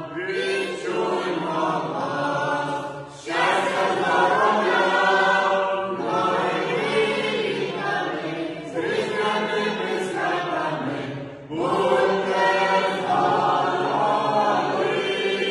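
A small mixed choir of women, men and a child singing a Ukrainian Christmas carol (koliadka) a cappella, in long phrases with brief pauses for breath about three seconds in and again after eleven seconds.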